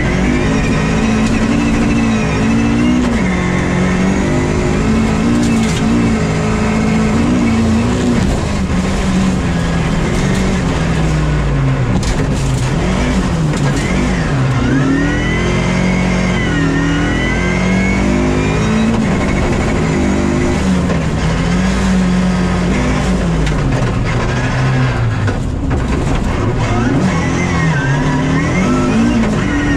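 Rally car's engine heard from inside the cabin at racing speed, climbing in pitch under throttle and dropping back again and again through gear changes and braking, with a few sharp knocks about twelve seconds in.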